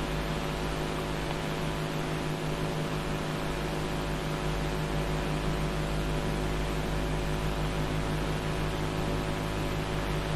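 Steady electrical hum with many overtones under an even hiss, unchanging throughout: background noise of the recording.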